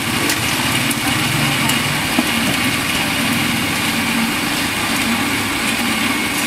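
A small motor running steadily with an even hum.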